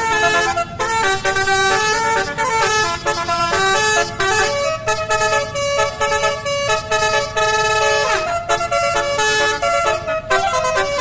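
Basuri telolet bus horn playing a melody: a continuous run of loud, stepped multi-tone horn notes, with one note sliding down in pitch about eight seconds in.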